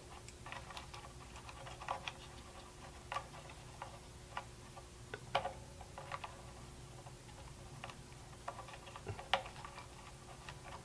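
Light, irregular clicks and ticks of needle-nose pliers handling and pulling pickup lead wires, over a faint steady hum.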